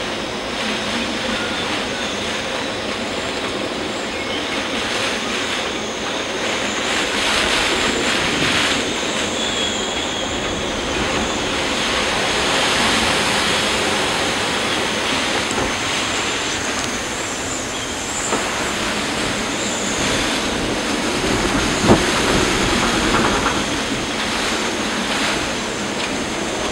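Storm wind and heavy rain: a loud, steady rushing noise, with wind buffeting the microphone. A single sharp knock comes late on.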